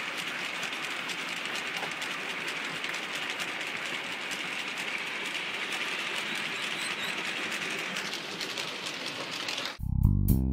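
Model railway train running on its track: a steady rattling whir of small wheels on the rails with faint fine clicks. It cuts off abruptly near the end as music begins.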